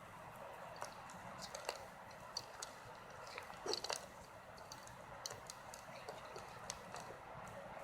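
Irregular small clicks and crackles of battery parts being picked and pulled apart by hand, with a denser burst of crackling about four seconds in.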